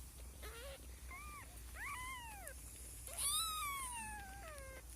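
A kitten meowing: four or five short, high calls that rise and fall in pitch. The longest and loudest comes about three seconds in and slides steadily down.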